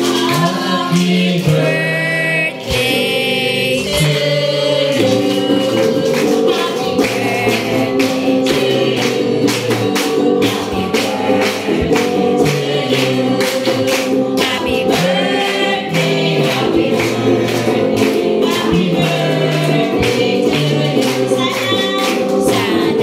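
A group singing a lively song together, led by a woman singing into a microphone and accompanied by an electric guitar, with rhythmic hand-clapping keeping the beat.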